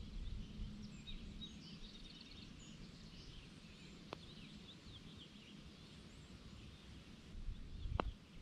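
Faint outdoor ambience: a low rumble with small birds chirping, and a sharp click about four seconds in and another near the end.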